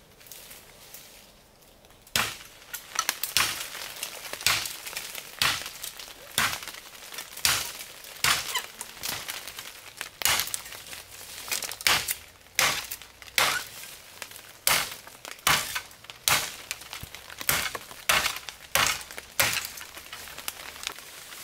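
Repeated sharp chopping blows, about one a second, starting about two seconds in and going on steadily.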